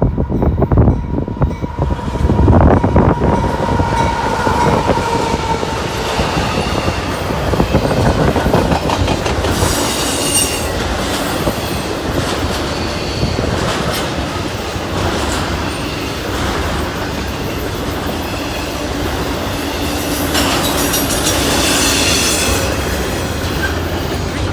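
CSX freight train passing close: the diesel locomotives go by loudest at the start, then double-stack intermodal cars roll past with a steady rumble and clatter of wheels on the rails. High-pitched wheel squeals come about ten seconds in and again near the end.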